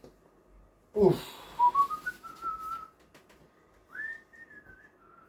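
A person whistling: a note slides up quickly about a second in and is held, then a second, higher held note comes near the end.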